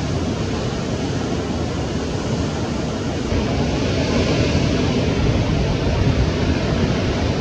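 Ocean surf, a steady rushing wash with wind buffeting the microphone; it grows louder about three seconds in as a wave breaks.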